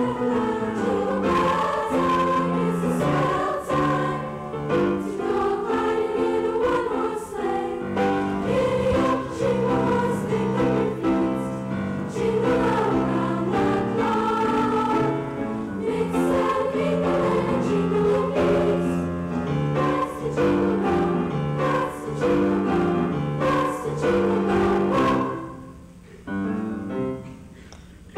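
A school choir singing, holding sustained chords; the sound drops sharply about 26 seconds in, with quieter singing continuing under it.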